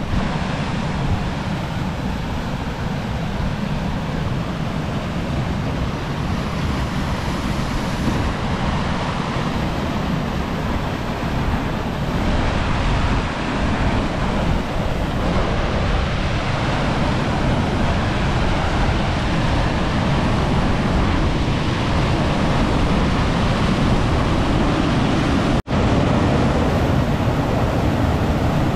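A mountain stream's cascade rushing and tumbling over boulders: a steady, loud roar of white water. It cuts out for an instant near the end.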